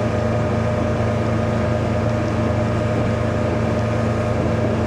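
A Mercruiser 120 hp four-cylinder sterndrive engine running steadily under way at cruising speed, a constant engine hum over the rush of wind and water.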